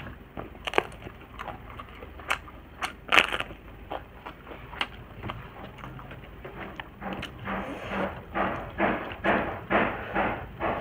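A crisp fried papad being bitten and crunched, with a few sharp cracks. From about two-thirds of the way in it gives way to steady close-up chewing, about three chews a second.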